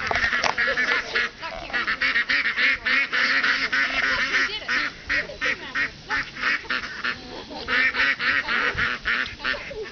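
A flock of domestic ducks quacking almost without pause, many short overlapping calls, as a herding dog drives and splits the flock.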